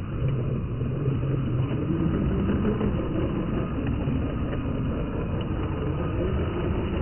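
MN86KS scale RC crawler running past on a wet dirt track, a steady engine-like rumble with a low hum that holds level throughout.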